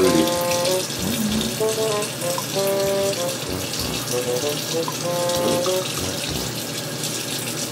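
A bathroom tap running into the sink, a steady hiss, with background music of short held notes over it.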